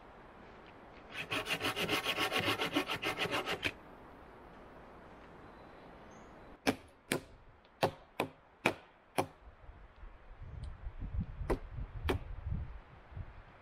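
Hand saw cutting through a wooden pole in quick rasping strokes, about eight a second, for about two and a half seconds. Then come six sharp wooden knocks about half a second apart, followed by low thuds and rustling as a log rail is handled.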